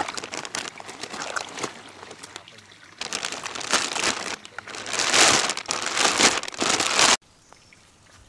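Plastic bag lining a basin of water crinkling and rustling as hands shift large live carp about in it, with water sloshing. It gets louder about three seconds in and cuts off abruptly near the end.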